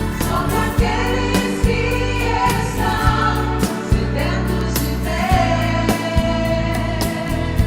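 Gospel song: sung vocals with choir backing over a full band, with a steady drum beat.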